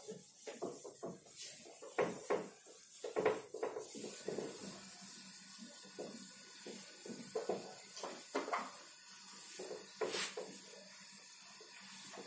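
Whiteboard eraser rubbed back and forth across a whiteboard in repeated, irregular wiping strokes, a few of them sharper and louder.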